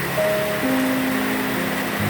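Soft music of slow, held notes over the steady hiss of heavy rain.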